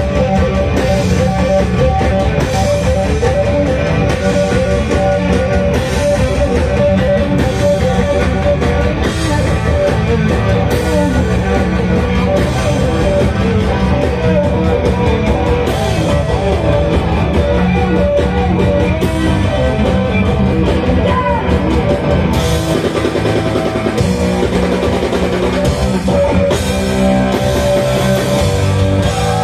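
Live rock band playing: electric guitar over a drum kit, loud and without a break.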